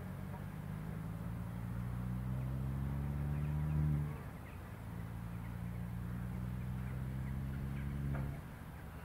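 A low, steady engine drone. It creeps up slightly in pitch, cuts off about four seconds in, starts again a moment later and cuts off again near the end.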